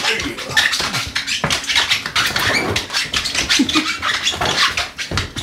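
A man shadowboxing in boxing gloves, making a rapid run of sharp huffing breaths and grunts, with rustling and scuffing of gloves and robe.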